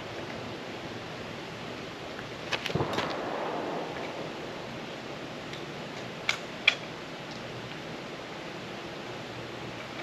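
Two pistol shots about a third of a second apart a couple of seconds in, each trailing an echo, then two sharp clicks about half a second apart a few seconds later, over a steady outdoor hiss.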